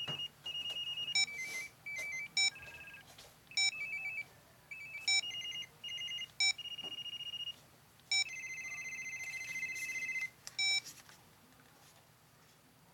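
Motorola StarTAC analog cell phone previewing its ringer tones as the ringer setting is stepped through: about eight short electronic ring patterns, mostly quick trills between two high notes, each started by a short loud key beep. The last pattern is the longest, and the tones stop about 11 seconds in.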